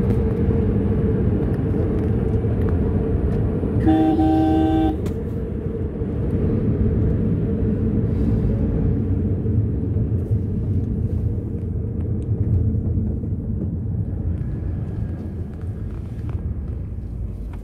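Steady engine and road rumble of a vehicle on the move. A horn honks once, for about a second, about four seconds in.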